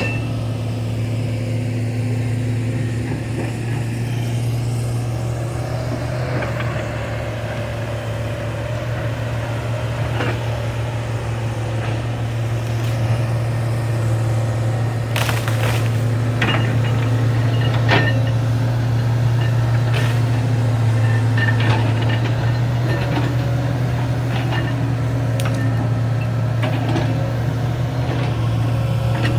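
Large hydraulic excavator's diesel engine running steadily under load, with scattered knocks and cracks from the work, more of them in the second half.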